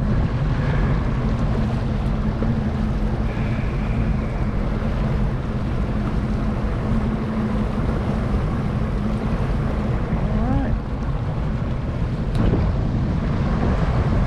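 A boat's motor running steadily with a low, even hum, with wind buffeting the microphone.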